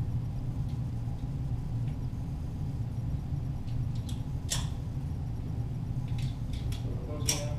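A few sharp cracks of .22 target pistol shots heard from the target end, over a steady low rumble; the two loudest come about four and a half seconds in and near the end, with fainter ones between.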